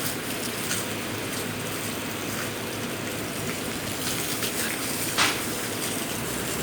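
Water gushing steadily, with one sharp click about five seconds in.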